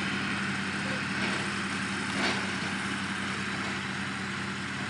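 An engine running steadily at idle, a constant low hum, with a single short knock about two seconds in.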